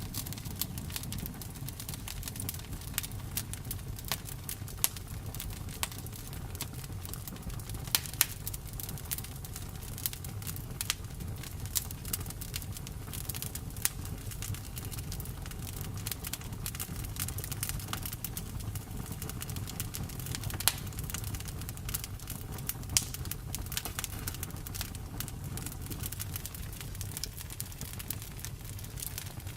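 Campfire burning with a steady low rumble of flames and irregular sharp pops and crackles of burning wood, several louder snaps scattered through.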